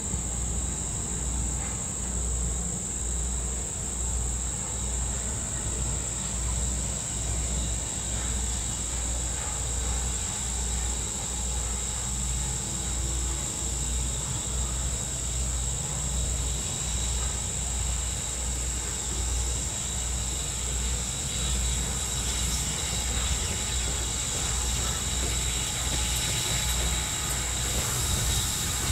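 Steam locomotive No. 475, a 4-8-0, drifts slowly closer, with a low, regular pulsing about one and a half times a second that grows a little louder near the end. Insects buzz steadily at a high pitch behind it.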